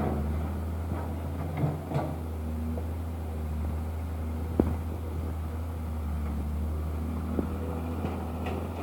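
An excavator running with a steady low hum, with a few short clanks and knocks, the sharpest about four and a half seconds in.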